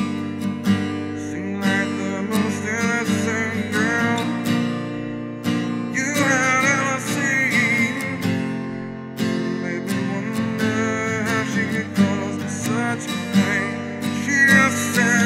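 Acoustic guitar strummed steadily in a slow acoustic song, with a wavering melody line over it several times.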